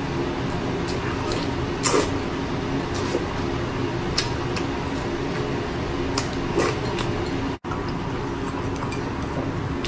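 Eating sounds: chewing, with sharp clicks of wooden chopsticks against a ceramic rice bowl, the loudest about two seconds in. These sit over a steady background hum, and the sound cuts out for an instant about three-quarters of the way through.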